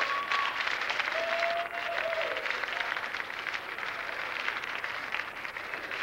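Audience applauding steadily as the dancers take their bow.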